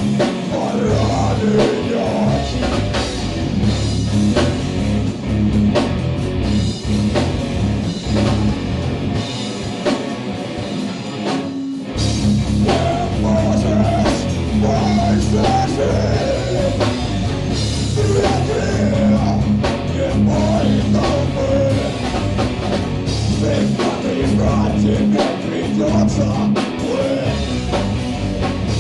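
A heavy metal band playing live: electric guitars, drum kit and a singer at the microphone. About nine seconds in the low end thins out, and the full band comes back in hard at about twelve seconds.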